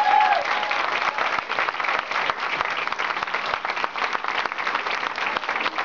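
A roomful of people applauding steadily, dense clapping throughout, with one voice whooping briefly right at the start.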